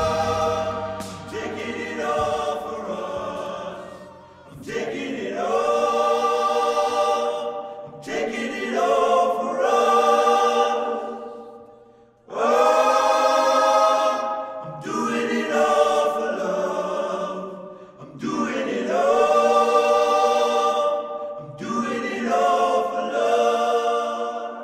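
Choir singing long held chords in about seven swelling phrases of three to four seconds, each fading away before the next begins.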